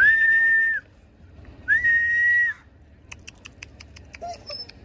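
Two long, loud whistles, each sliding briefly up and then held at one pitch, calling a missing stray dog. A quick run of light clicks follows near the end.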